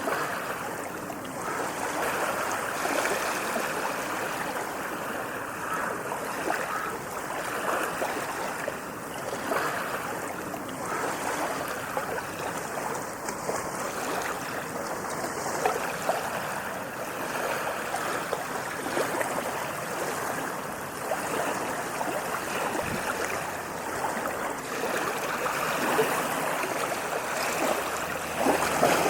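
Ocean waves washing onto a sandy beach: a continuous wash of surf and churning water that swells and eases without a break.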